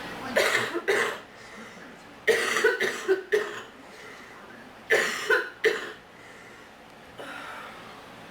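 A person coughing in three short fits of two to four coughs each, about a second in, about two and a half seconds in and about five seconds in.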